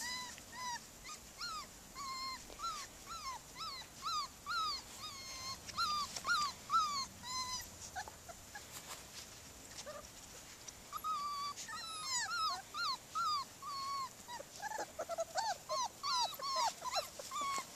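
Young border collie puppies whining and yelping: many short, high calls in quick succession, each rising and falling in pitch, with a quieter stretch about halfway through.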